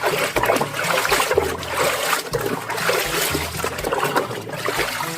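Water running and splashing over a muddy toy bus as it is rinsed and washed clean, with a steady trickling wash.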